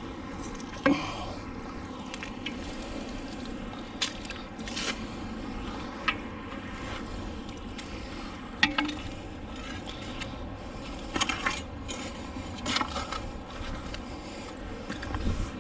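Irregular metal knocks and scrapes from a piece of old iron fencing stuck to a fishing magnet as it is hauled in and handled, the sharpest clanks about a second in and near the middle.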